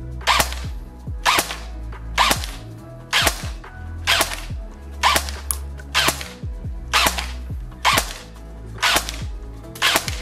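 Cybergun MK46 airsoft electric light machine gun on a 7.4 V LiPo, fired one shot at a time through a chronograph, about once a second. Each shot is a sharp crack from a short tap on the full-auto trigger, followed by a brief falling whine.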